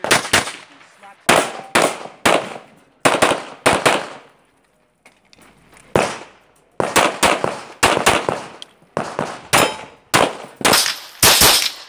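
Pistol shots fired in quick strings, a few shots a second with short echoing tails, broken by a pause of about two seconds midway before firing resumes.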